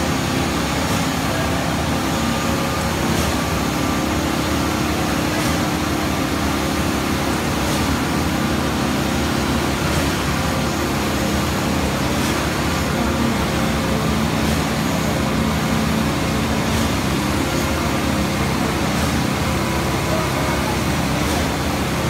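Junjin JJRZ50-5.16HP truck-mounted concrete boom pump running steadily under load while pumping concrete, with faint clacks about every two seconds as the pump cycles its strokes.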